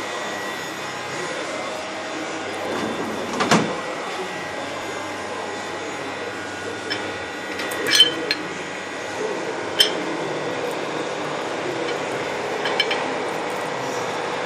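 Milling machine running steadily, with a few sharp metallic clinks and knocks, one around three and a half seconds in and a cluster around eight to ten seconds.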